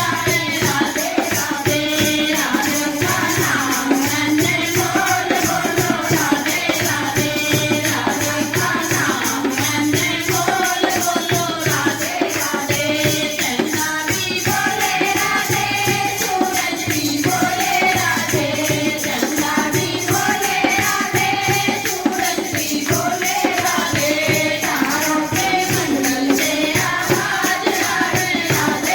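Devotional bhajan music: voices singing a melody over a fast, steady jingling percussion.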